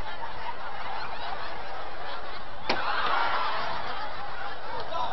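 A large audience laughing. About halfway through there is one sharp crack, and the laughter swells right after it.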